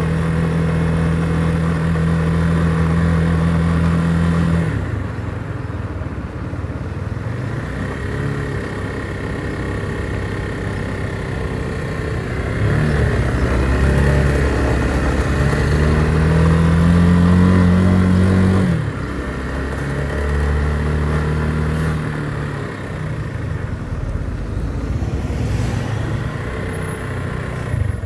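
Motorcycle engine running while riding, with steady road and wind noise. Its note holds steady, then climbs from about halfway through and drops suddenly as the throttle is eased off.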